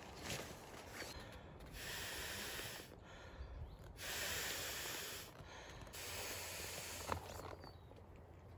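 An inflatable sleeping pad being blown up by mouth: long puffs of air into its valve, a second or so apart. A single sharp click comes about seven seconds in.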